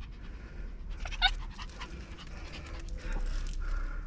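Excited Shih Tzu panting, with one short high yelp about a second in.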